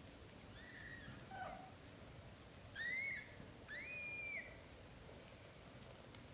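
Young British shorthair kittens mewing: four short, high, arched mews, the loudest two about three and four seconds in.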